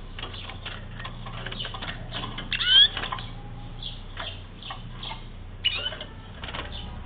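Wild Atlantic canary giving two loud sweeping call notes, the louder a little under three seconds in and a shorter one near six seconds, over a run of light clicks and taps.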